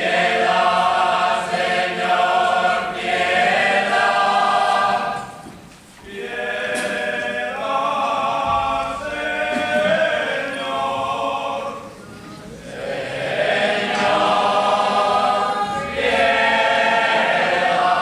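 A group of men singing a cappella in unison, in long held phrases with brief pauses about six and twelve seconds in.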